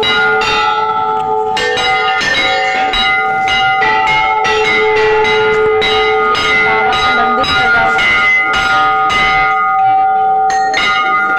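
Temple bells struck over and over, two or three strokes a second, several bells at different pitches ringing on and overlapping into a loud, continuous peal.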